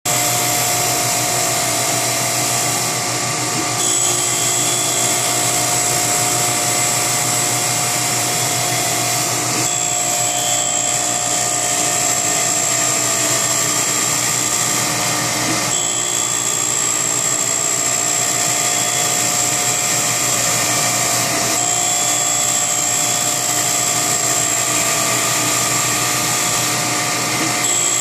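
1968 K.O. Lee surface grinder running, its grinding wheel working a piece of S7 tool steel. It makes a steady whine over a grinding hiss, and the tone shifts about every six seconds.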